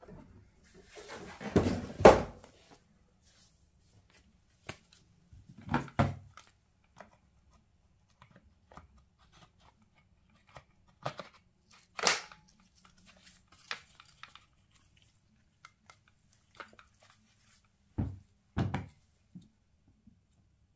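Handling noises: a cardboard box rustles, then sharp plastic knocks and clicks as a battery pack is fitted to a cordless angle grinder, and two low thuds near the end as the tool is set on its hard plastic case. The grinder's motor does not run.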